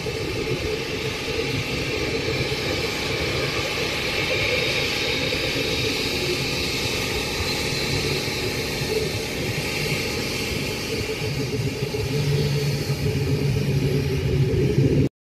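Boeing 787-9 Dreamliner's jet engines running as the airliner rolls along the runway: a steady high whine over a low rumble, growing a little louder near the end, then cut off abruptly.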